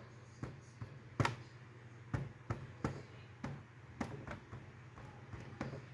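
About a dozen faint, irregular clicks and taps over a low steady hum.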